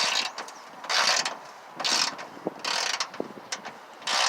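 Icon G2 3/8-inch drive 14-inch locking flex-head ratchet, 80-tooth, clicking through its return swings as it turns out a fender bolt that has just been broken loose. There are about five quick ratcheting strokes, roughly one a second.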